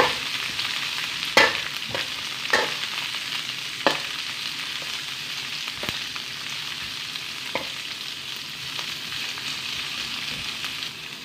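Chopped aromatics sizzling in hot oil in a steel wok, stirred with a metal spatula that scrapes and knocks against the pan every second or two over a steady hiss.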